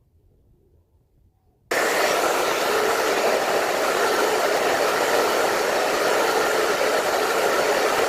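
Hand-held hair dryer blowing, cutting in abruptly about two seconds in after near silence and then running with a steady, loud rushing noise.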